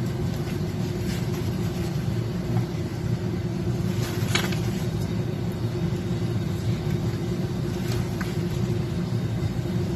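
Steady low machine hum, a constant tone over a rumble, with a light tap a little over four seconds in as fried potato slices are set into a glass baking dish.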